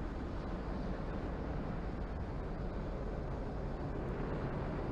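Falcon 9 rocket's first-stage engines running at full power during ascent, about half a minute after liftoff: a steady, deep rumbling noise.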